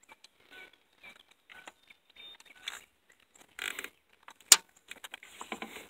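Small clicks and rattles of hands working a detached engine linkage rod back onto its plastic end clip, with one sharp click about four and a half seconds in.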